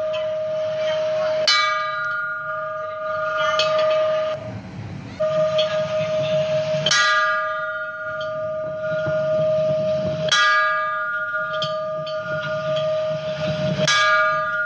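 Temple bell rung again and again, struck every three to four seconds, each strike ringing on in a steady, sustained tone until the next one.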